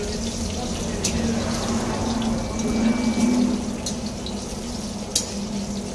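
Boiled eggs sizzling in hot oil in a steel wok, with a steady hiss and a low hum underneath. A metal spatula knocks against the pan about a second in and again near the end.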